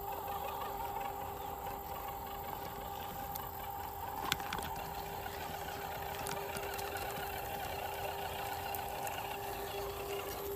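Small electric motor and gearbox of an MN78 1/12-scale RC off-road car whining at a steady pitch. A single sharp click comes about four seconds in.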